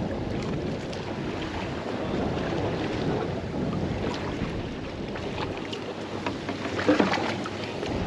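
Strong wind buffeting the microphone over the wash of rough sea around the boat, with a few faint clicks and a brief louder knock about seven seconds in.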